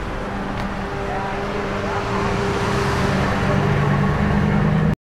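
Pickup truck driving past close by: engine hum and tyre noise that grow louder over the last few seconds, then cut off suddenly just before the end.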